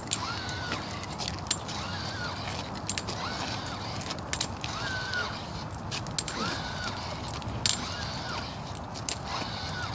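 Powered walking exoskeleton's leg motors whining once with each step, a short rising-and-falling whine about once a second, mixed with sharp clicks of forearm crutch tips striking the pavement.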